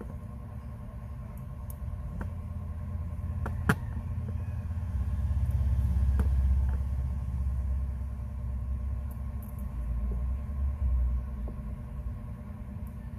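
Steady low rumble that swells in the middle, with a few small sharp clicks, one louder click a little under four seconds in.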